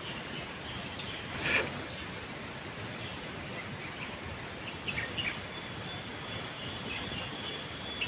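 Steady outdoor background noise, with one brief louder sound about a second and a half in and a few faint short sounds around five seconds in.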